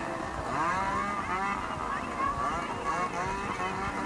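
Crowd of spectators chattering, with a motor vehicle's engine running underneath.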